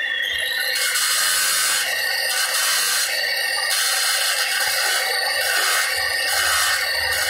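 Handheld electric marble cutter with a circular blade grinding along the edge of a marble slab: a steady grinding noise with a high whine, fairly loud throughout.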